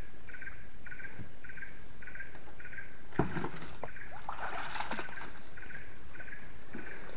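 Water splashing and dripping as a net fish trap is handled and lifted in swamp water: a sharp knock about three seconds in, then a short burst of splashing about a second later. Behind it runs a steady rhythmic chirping of about two chirps a second, over a constant high whine.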